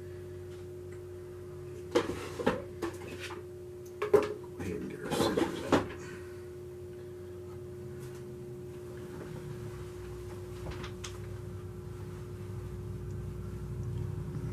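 A handful of sharp knocks and clatters, as of things being handled and set down, in the first half, over a steady background hum with a low rumble building near the end.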